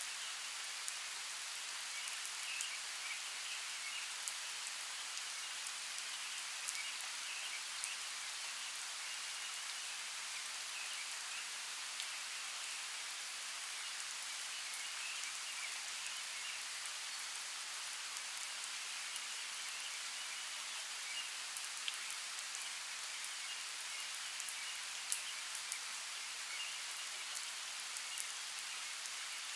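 Steady rain falling, with many scattered drop ticks. Faint high chirping sits in the background throughout.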